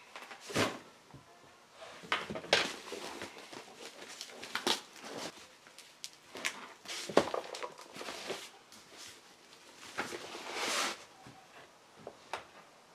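Cardboard boxes and a boxed roll of saw chain being handled: scattered knocks as things are picked up and set down, with cardboard scraping and rustling between them and a longer rustle about ten seconds in.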